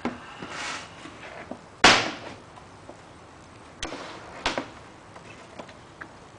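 Hard plastic carry case being opened: a click and a rustle, then a loud clack about two seconds in as the lid swings open, followed by two sharper clicks as the case is handled.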